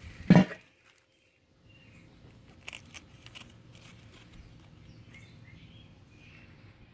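A single loud knock just after the start, then, after a brief silence, faint outdoor background with short bird chirps and a few light clicks.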